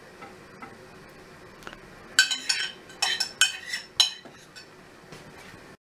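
A metal spoon scraping and clinking against a ceramic bowl as grated carrot is served out of it. The clinks come as a quick run of sharp, ringing strikes, about six or seven of them, between about two and four seconds in.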